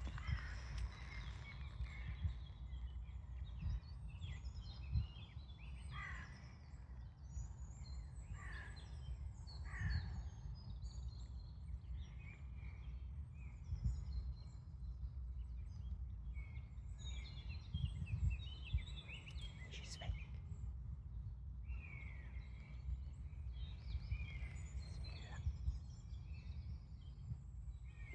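Wild birds singing and calling, with several short calls that sweep downward in pitch, over a steady low rumble.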